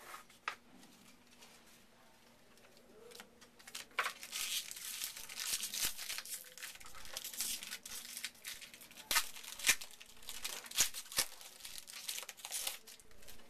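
Trading-card pack wrapper being torn open and crinkled by hand, a dense run of sharp crackles starting about four seconds in.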